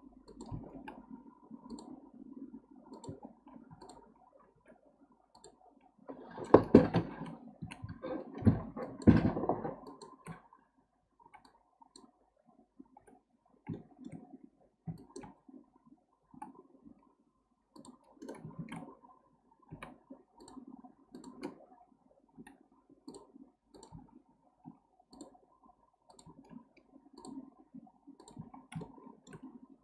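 Computer mouse and keyboard clicking at irregular intervals while working in Blender. About six to ten seconds in, there is a louder flurry of knocks and rustling.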